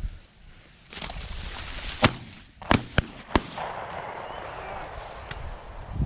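Rapid 12-gauge shotgun shots fired at a flying pheasant: four sharp bangs within about a second and a half, starting about two seconds in, then one fainter shot near the end.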